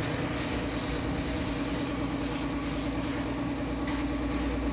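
Aerosol cleaner spray hissing in a string of short bursts, over a steady low hum.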